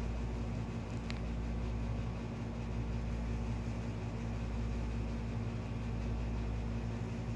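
A steady low mechanical hum with an even hiss over it, with one faint short tick about a second in.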